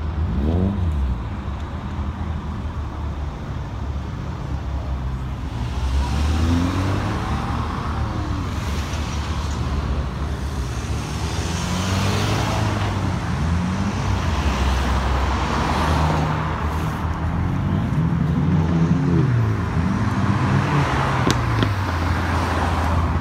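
Several cars driving past one after another, their engines rising and falling in pitch as they accelerate and ease off, with road noise swelling at each pass.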